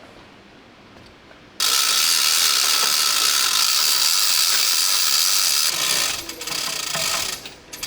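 A ratchet wrench undoing the bolts of the BMP-1's top deck: a steady rapid ratcheting starts suddenly about a second and a half in and runs for about four seconds, then continues in shorter stop-start runs.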